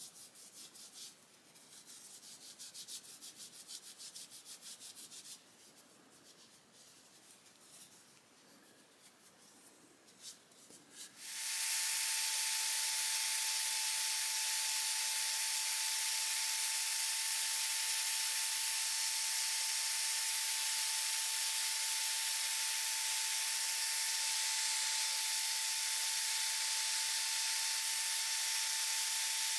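Cloth rubbing paste wax onto a plastic screwdriver handle in quick strokes for about five seconds, then more faintly. About eleven seconds in, an electric drill with a cloth buffing wheel in its chuck starts and runs steadily for the rest of the time: a hiss with one steady whine.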